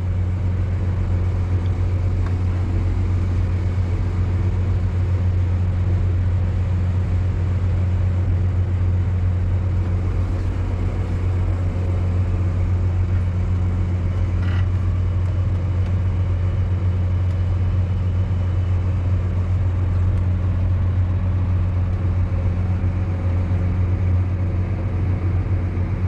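Tractor engine pulling a grain cart, running at a steady low drone, heard from inside the cab.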